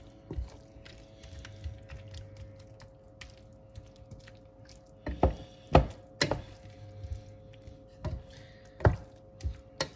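Wooden spatula stirring eggs and vegetables in a stainless-steel frying pan, knocking sharply against the pan several times, the loudest knocks about five to six seconds in and again near the end. A faint steady hum runs underneath.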